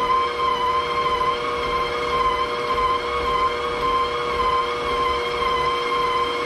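Planetary stand mixer motor running steadily while kneading a high-hydration pizza dough, a constant whine whose pitch wavers slightly as the load shifts.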